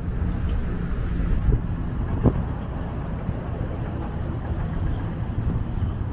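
Road traffic as a steady low rumble, with a single short knock about two seconds in.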